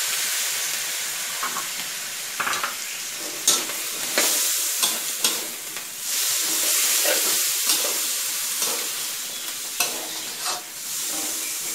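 Stir-frying in a wok: food sizzling steadily with a little added water while a metal spatula scrapes and clicks against the wok, several sharper scrapes scattered through.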